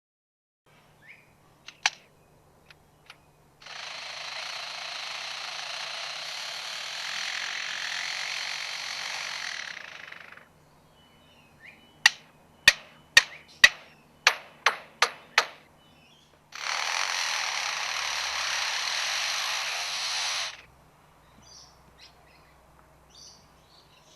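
Male superb lyrebird mimicking construction work. It gives a long steady machine-like noise, then a run of about nine sharp hammer-like strikes, then a second, shorter burst of the machine noise.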